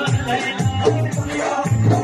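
Dance music with a quick, steady drum beat and a melody over it.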